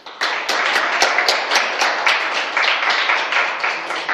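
A small crowd applauding, with one clapper's sharp claps standing out at about four a second.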